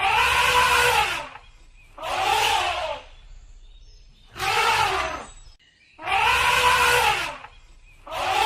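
Elephant trumpeting: five loud calls about two seconds apart, each about a second long and rising then falling in pitch.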